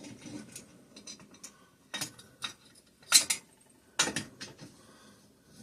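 Hand tools and metal engine parts clinking and clanking on a workbench as bolts are turned out of a Kohler opposed-twin engine, with a few sharp knocks about two, three and four seconds in.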